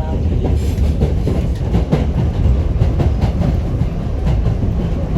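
New York City subway train running, heard from inside the car: a steady low rumble with the wheels clacking over rail joints.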